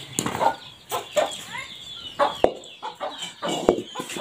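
Hens clucking in short repeated calls, several a second, with two sharp clicks partway through.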